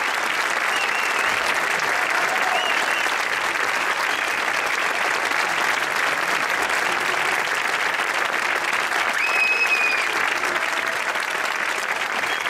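Audience applauding steadily in an auditorium, with a few short high calls from the crowd above the clapping, the clearest about nine seconds in.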